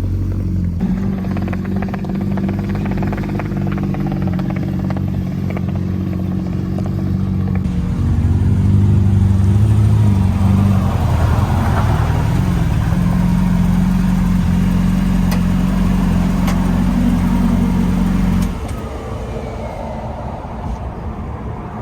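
Motor vehicle engine running on the road. It picks up and gets louder about eight seconds in, holds a steady note, then eases off and quietens a few seconds before the end as the vehicle slows.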